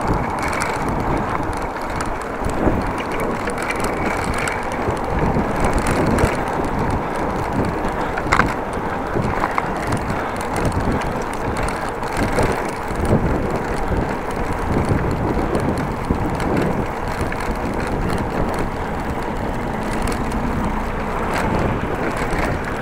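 Bicycle riding at speed over brick paving: steady wind noise on the microphone mixed with tyre rumble and rattle, with a few sharp clicks.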